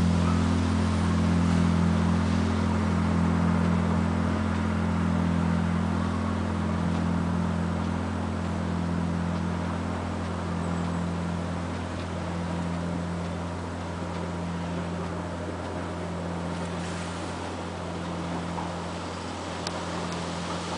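Deep hum of a large church bell, two low steady tones slowly fading away, with no new strikes.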